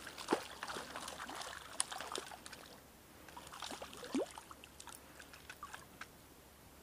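Water splashing and dripping in short, irregular strokes with small clicks, busiest in the first couple of seconds, then a single rising plop about four seconds in before it settles to a faint trickle.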